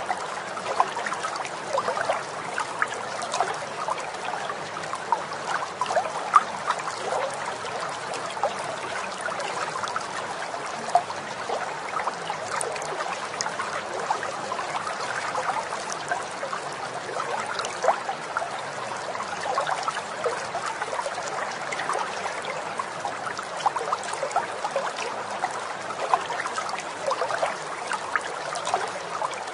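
Water trickling and babbling like a small stream, a steady rush dotted with many small irregular splashes.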